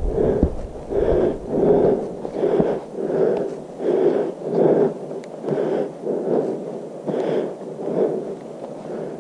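A hiker breathing hard and loud near the microphone, a steady rhythm of breaths in and out, about one every three-quarters of a second.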